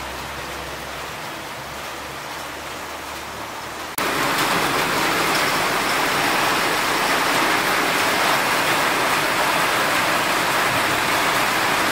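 Rain falling steadily, an even hiss of drops. About four seconds in, the sound cuts abruptly to a louder, brighter rain hiss that then holds steady.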